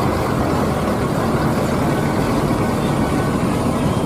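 Large truck engine running with a steady, low rumble.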